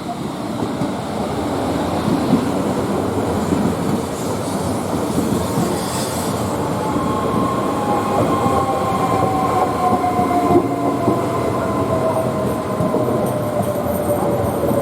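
Train passing close by, its wheels clattering rapidly over the rails. A high whine joins about halfway through and slowly drops in pitch.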